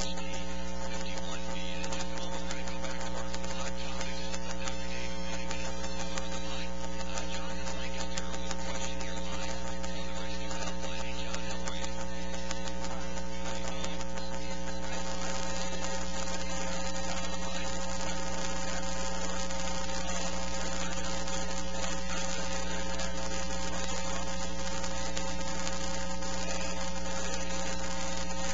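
Steady electrical mains hum and buzz with a constant hiss from a sound system's recording chain, unchanging throughout, with no other sound.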